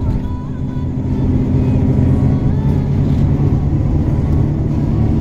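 Steady low engine and road drone heard from inside a moving vehicle's cabin.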